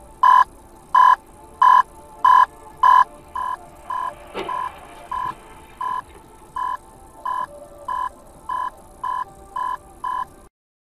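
An electronic beeper sounding one steady tone in short, evenly spaced beeps about one and a half times a second. The beeps drop in loudness about three seconds in, a single sharp knock comes about four and a half seconds in, and the beeping cuts off abruptly near the end.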